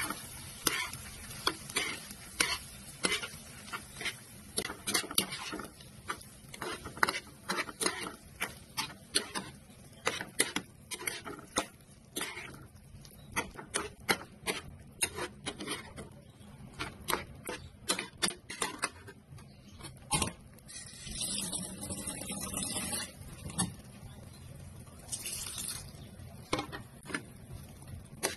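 A metal cooking utensil stirring and tapping against cookware, irregular clinks a couple of times a second, with two short stretches of hissing in the last third.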